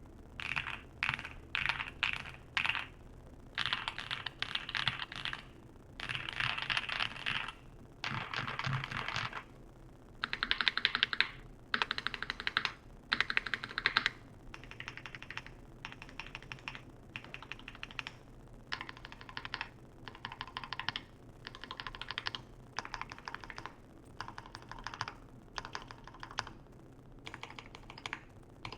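Typing on a mechanical keyboard with lubed and filmed Boba U4T tactile switches, a polycarbonate plate, full foam and POM Cherry-profile keycaps: rapid keystrokes in short bursts with brief pauses between them.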